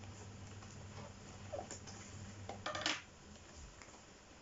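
Cardboard product box being opened by hand: soft scrapes and rustles of the flaps, with a brief louder burst of crackling cardboard near the end.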